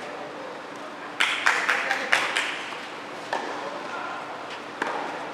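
Tennis balls being struck and bouncing on a clay court: a quick cluster of sharp knocks about a second in, then single knocks later on.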